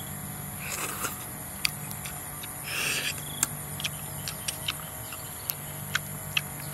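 Person eating cooked snails: two short sucking slurps, about a second and about three seconds in, among scattered sharp little clicks of mouth and shells, over a steady high insect drone.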